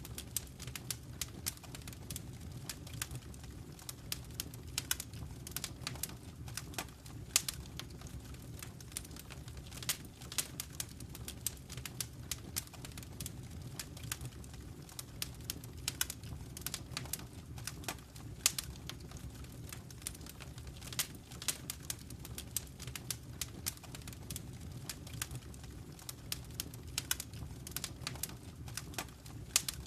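Wood fire burning in a fireplace, with irregular crackles and sharp pops over a steady low rumble.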